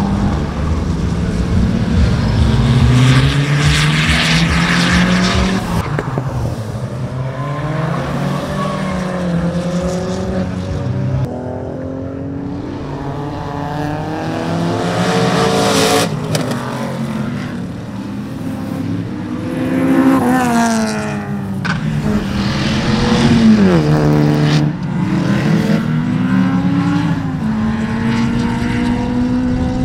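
Several different cars lapping a race circuit in turn, their engines revving up and dropping back through the gears. The sound switches abruptly from one car to the next every few seconds. Tyres squeal as one car slides with its rear tyres smoking.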